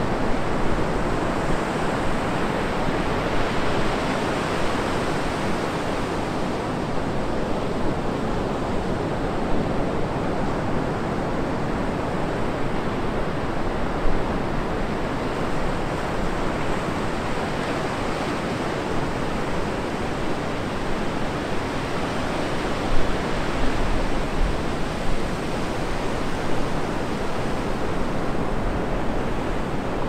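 Atlantic surf breaking and washing up a sandy beach: a steady, dense rush of waves, with a couple of louder breaks about halfway and two-thirds of the way through.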